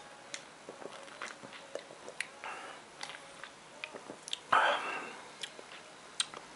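Mouth sounds of someone sipping and tasting cider: small lip and tongue smacks and swallowing, with a louder breathy sound about four and a half seconds in.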